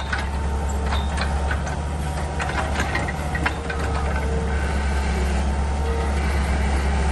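Bobcat track loader's diesel engine running steadily under load as its hydraulic auger attachment drills a foundation shaft into the ground. A few sharp knocks and clanks come in the first few seconds.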